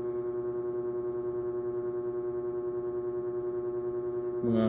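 A steady humming drone with many overtones, holding one pitch throughout and pulsing faintly.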